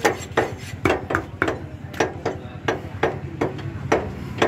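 Butcher's cleaver chopping mutton on a wooden chopping block, a steady run of sharp strokes about two to three a second.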